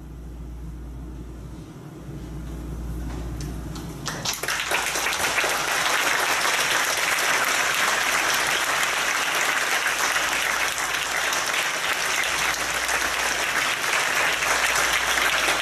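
Theatre audience applauding. The clapping starts abruptly about four seconds in, after a few seconds of quiet hall tone, and then keeps on steadily.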